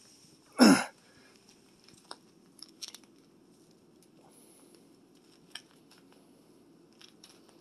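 A short wordless human voice sound, falling in pitch, just under a second in. After it come faint scattered clicks and scratches as a pet grey squirrel scrabbles at a plush toy on a tile floor, over a low steady hum.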